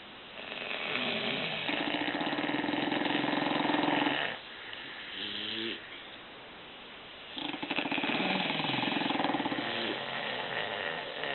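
English bulldog snoring: two long, rattling snores of about four seconds each, with a shorter, softer breath between them.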